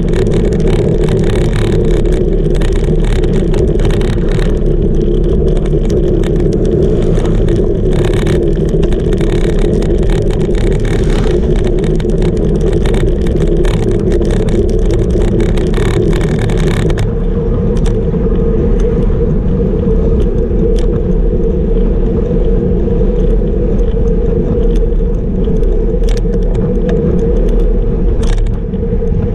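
Wind rushing over a camera on a road bike moving at about 40 km/h, with the tyres clattering over brick paving. About 17 seconds in the road turns to asphalt and the clatter gives way to a smoother, duller rush.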